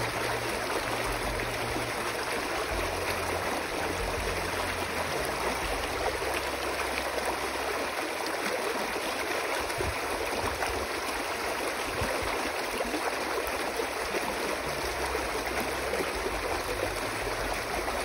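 Shallow rocky stream cascading over boulders, a steady rush and splash of water.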